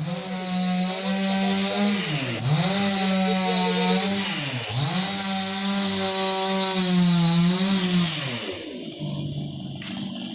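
Chainsaw running at high revs, its pitch dipping sharply and recovering twice, then dropping to a lower, slower speed for the last couple of seconds.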